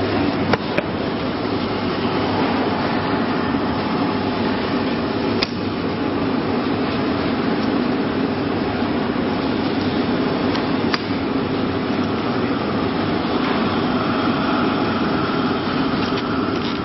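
Automatic shrink-wrapping machine running with a steady mechanical whir, and a few sharp clicks.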